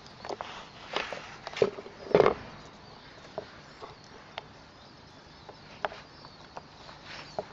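Knocks and light taps as bunches of crosnes (Chinese artichoke tubers) are set down and shifted about on wooden boards, loudest around two seconds in, then a few scattered soft ticks.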